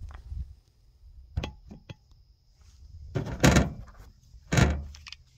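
Handling noise on a plastic truck-bed liner: a few light clicks, then two dull thumps about a second apart, as a pistol and its magazines are handled and the phone camera is moved.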